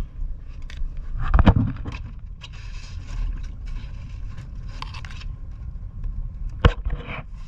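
Knocks and scraping over a steady low rumble: a heavy knock about a second and a half in, a stretch of scraping in the middle, and a sharp knock near the end.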